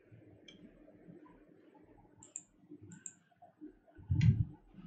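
Faint room tone with a few sharp, faint computer mouse clicks advancing a presentation slide, then a short low thump about four seconds in.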